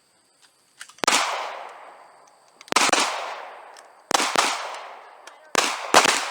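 Six shots from a Glock 30 .45 ACP pistol, fired at an uneven pace with two quick pairs. Each shot trails off in a long echo. A couple of light clicks come just before the first shot.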